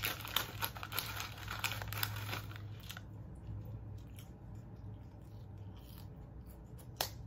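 Paper being crinkled and torn in quick crackles for about the first three seconds, then much quieter, with one sharp click near the end.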